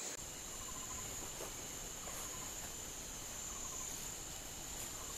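Steady high-pitched drone of insects.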